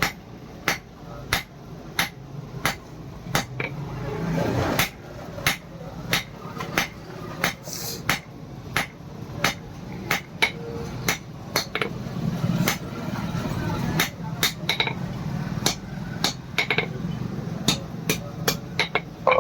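Blacksmith's hand hammer striking hot iron on an anvil while forging a knife blade: steady, even blows about one and a half a second, coming a little faster near the end.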